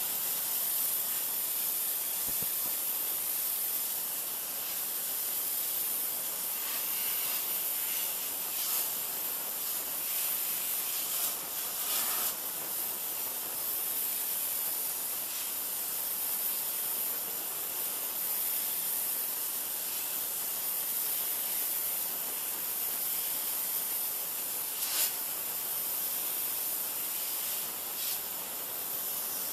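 Steady high hiss of a pressure washer's water jet spraying a plastic lawn chair, swelling briefly a few times as the jet moves. No engine is heard.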